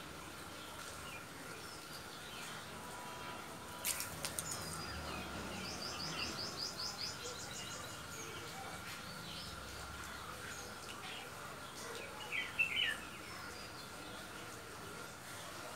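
Small birds chirping, with a quick run of high notes about five seconds in and louder chirps near the end. A few sharp clicks come about four seconds in, over a faint steady high tone.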